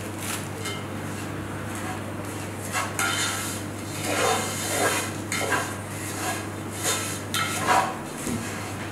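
Silicone pastry brush dabbing melted butter over galash (phyllo) sheets in a metal baking tray: a run of short, irregular swishes and light taps starting about three seconds in, over a steady low hum.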